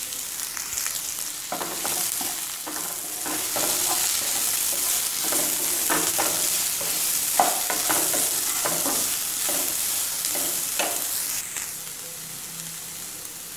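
Chopped onions sizzling as they fry in hot oil in a non-stick kadai, stirred with a wooden spatula that scrapes and knocks against the pan in irregular strokes. The stirring stops and the sizzle drops lower a couple of seconds before the end.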